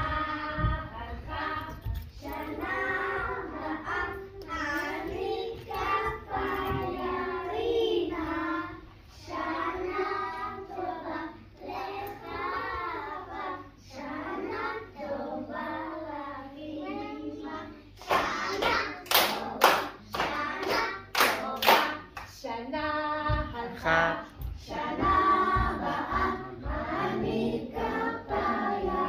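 A group of young children singing a song together, with a run of claps in time, about two a second, a little past the middle.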